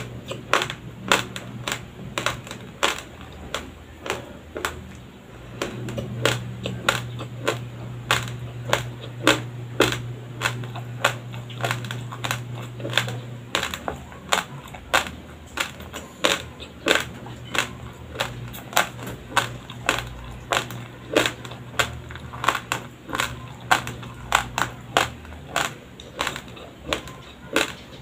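A person chewing raw, uncooked white rice close to a microphone: a steady run of sharp, dry crunches, about two a second, as the hard grains crack between the teeth.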